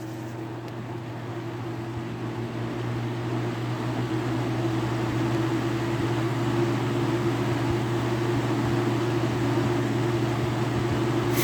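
Lasko Galaxy 3723 box fan running on medium from a cold start, its motor humming steadily while the blade speeds up, the sound slowly growing louder over the first several seconds and then holding. A sharp click right at the end.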